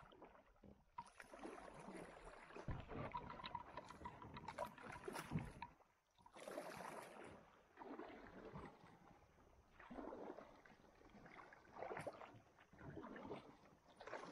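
Quiet kayak paddle strokes dipping and splashing in slow river water, a stroke about every one and a half to two seconds.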